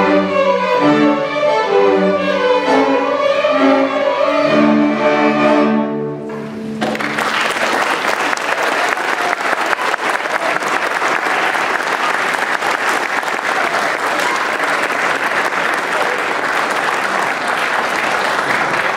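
Student string orchestra of violins and cellos playing the closing bars of a piece, ending on a held chord about six seconds in. The audience then breaks into steady applause.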